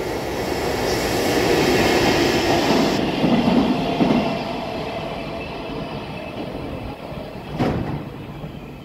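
EF65 electric locomotive and two Hoki hopper wagons passing fast, their wheels clattering over the rail joints. The rumble swells to its loudest a few seconds in, with a run of sharp clacks, then fades as the train moves off, with one more sharp knock near the end.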